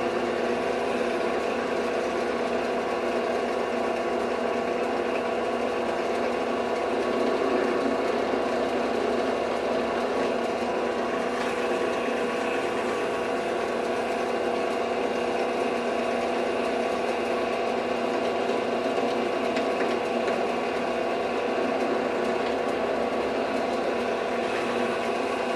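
Benchtop drill press motor running steadily with a 1/16-inch bit, drilling small holes through thin copper sheet backed by wood.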